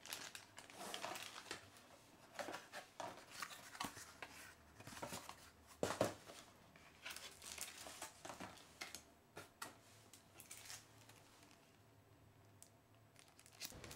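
Thin clear plastic packaging bags crinkling and rustling in hand, in faint short irregular bursts that thin out near the end.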